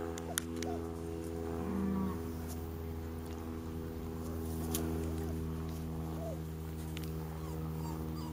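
Cows mooing in a low, drawn-out call held steady, with a few faint short high squeaks over it.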